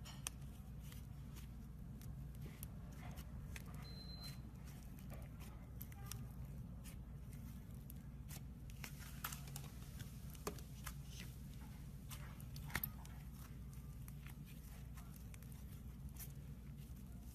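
Thick pink slime squeezed, poked and stretched by hand in a plastic tub, giving scattered soft crackles and small pops, with a few sharper pops past the middle. A steady low hum sits beneath.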